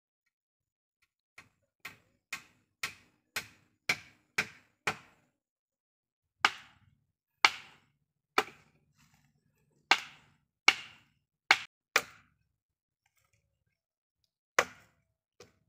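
Axe blows on wood: a run of eight quick strikes about half a second apart, growing louder, then single strikes about a second apart, and two last blows near the end.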